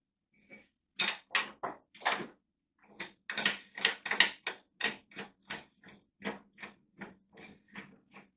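Small scissor jack being unwound by hand, its screw mechanism giving a quick series of short clicking strokes, about three a second, that grow fainter toward the end.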